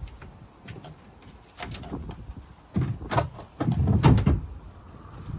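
A cut-out section of fiberglass boat deck scraping and knocking as it is worked loose and lifted, with a run of heavy thuds about three to four seconds in.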